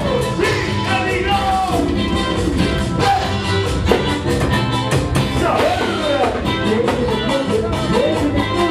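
Live band music with a steady beat and a melody line that slides up and down in pitch over it.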